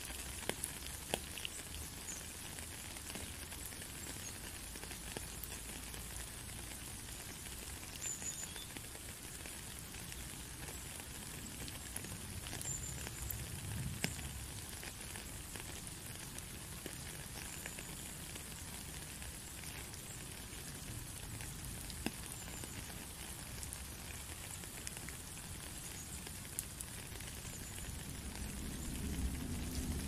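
Steady rain falling on a puddle and a wet gravel path: a dense, even patter of drops with an occasional sharper drip. A low rumble swells near the end.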